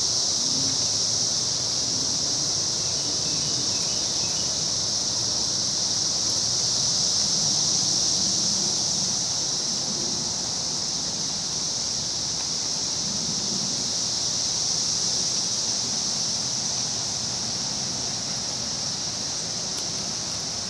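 A Brood II periodical cicada chorus: a continuous, steady high-pitched drone from many cicadas at once, swelling slightly in the middle and easing a little toward the end.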